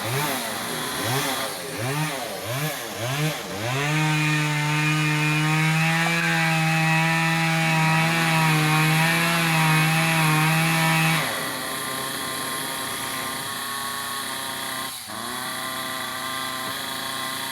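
Gas chainsaw revved in several short blips, then held at full throttle for about seven seconds, then dropping back to a lower, steady running speed.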